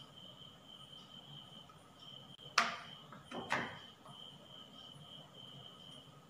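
Two light knocks about a second apart as a set chocolate is pressed out of a silicone mould and drops onto a plate, over a cricket's steady high chirring.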